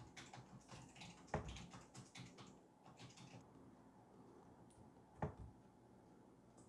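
Near-silent room with faint clicks at a computer desk: a run of light taps in the first few seconds, then two louder single clicks, about a second and a half in and about five seconds in.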